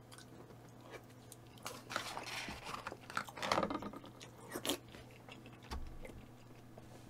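Close-up mukbang eating sounds: a person biting and chewing mouthfuls of galbi and kimchi, crunchy and wet, in several short bursts with small clicks between.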